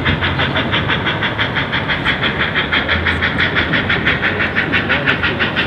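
Reading T-1 No. 2102, a 4-8-4 steam locomotive, working under steam as it approaches, its exhaust chuffing in a rapid, even beat over a low rumble.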